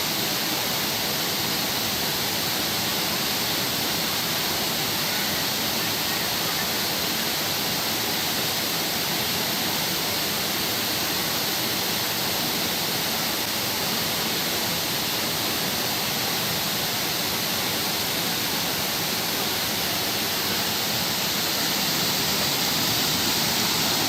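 Waterfall water rushing, a steady even roar with no change.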